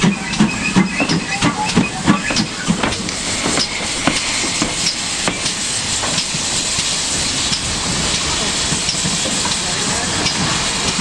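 GWR 4575-class small prairie tank locomotive No. 5526 pulling away under steam, its exhaust chuffing about three times a second for the first few seconds, then fading into a steady hiss of steam as it moves off.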